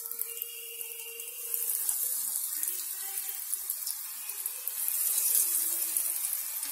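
Breadcrumb-coated onion rings deep-frying in hot oil: a steady sizzling hiss that grows louder about a second and a half in as the rings go into the oil.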